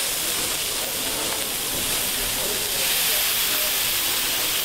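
Orange juice hitting a very hot frying pan around a duck burger patty, hissing and sizzling steadily as it boils off into steam, which deglazes the pan.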